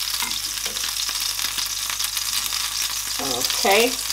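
Hot oil sizzling steadily in a nonstick frying pan left with crumbs of fried beef, with a silicone spatula stirring through it at the start.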